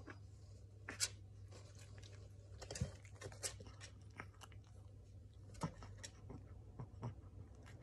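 Shih Tzu puppy chewing food taken from a hand, with faint, irregular crunches and clicks. The sharpest come about a second in, near three seconds, and between five and six seconds.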